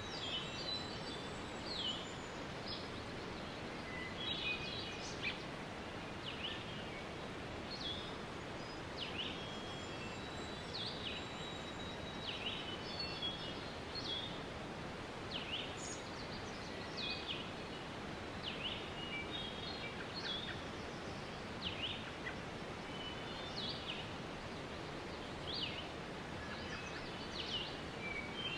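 Waterfall running as a steady rush, with birds chirping over it: many short chirps and quick whistled notes, several every couple of seconds.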